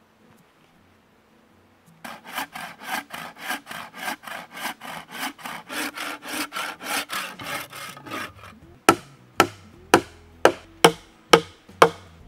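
A hand saw cutting through a green wooden pole in quick back-and-forth strokes, about four a second. Then seven sharp blows about half a second apart, striking a wooden peg into a log frame.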